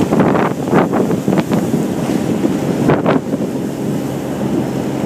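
Wind buffeting the microphone on a fishing boat under way at sea, over the boat's steady engine and the rush of waves along the hull. The noise surges suddenly several times near the start and again about three seconds in.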